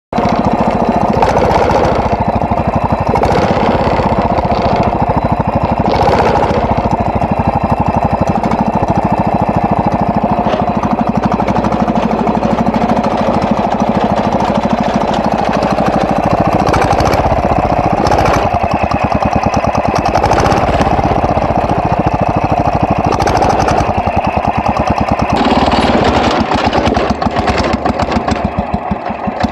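Wheel Horse garden tractor engine running loudly and unevenly, sputtering and misfiring. These are the symptoms the owner sees under load and traces to the ignition.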